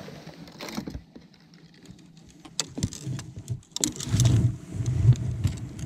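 Handling noise on a bass boat: scattered clicks and knocks from moving about the deck, with a run of low rumbling thumps a little after the middle.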